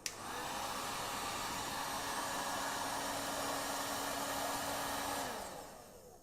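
Tolsen 2000 W hot air gun switched on with a click, its fan blowing a steady rush of air with a faint hum, then switched off about five seconds in and spinning down.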